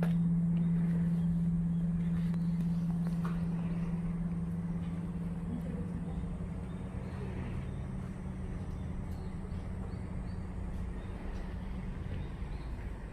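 The low hum of the Emille bell, the great bronze Divine Bell of King Seongdeok, dying away after a strike: one steady deep tone that fades over about six seconds into outdoor background noise.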